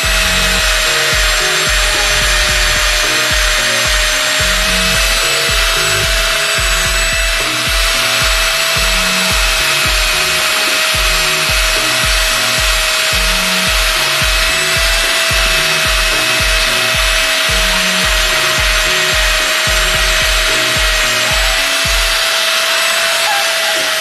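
Electric angle grinder with a buffing pad running steadily, a constant high motor whine over a rushing hiss, as it buffs metal polish on a steel motorcycle side stand.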